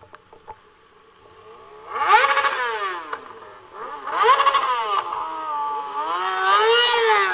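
Sport motorcycle engine revving: its note climbs steeply and drops back three times, about two seconds in, about four seconds in and again near the end, holding a steadier note between the last two.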